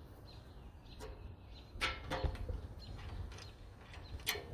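Socket ratchet turning a bolt on a mower deck bracket: a few short bursts of sharp metallic clicking, loudest about two seconds in and again near the end, over a low steady rumble.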